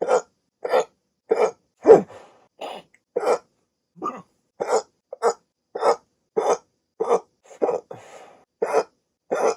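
A person hiccuping over and over: about sixteen short, sharp hiccups, a little under two a second, a few followed by a faint breath.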